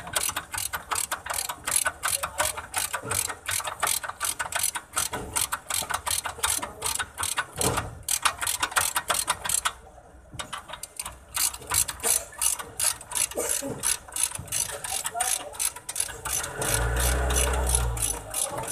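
Hand socket ratchet clicking in fast, even runs as it turns a fastener on a new truck upper control arm, with two short pauses. A low rumble comes in near the end.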